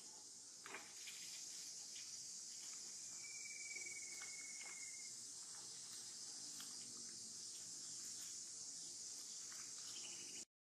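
Steady high-pitched chorus of insects in the background, with faint scattered rustling clicks and one brief thin whistle about three seconds in. The sound cuts off suddenly near the end.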